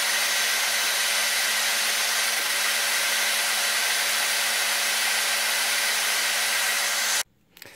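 Steady motor whir and hiss of an electric nail drill with a sanding bit filing a gel nail, over the fan of a nail dust extractor. It cuts off suddenly about seven seconds in.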